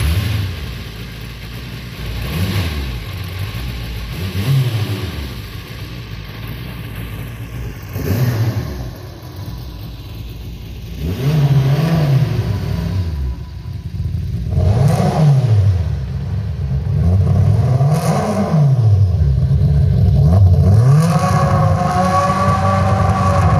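A car engine revving up and down over and over, its pitch rising and falling every couple of seconds and getting louder about halfway through. A few sharp shattering hits are mixed in.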